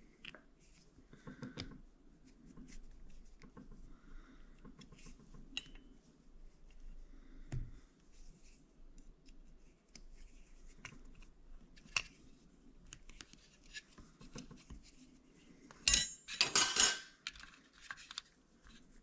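Small clicks and scratching of hand tools working on a shower valve cartridge as a small rubber washer is pried out, with a louder scratchy clatter near the end.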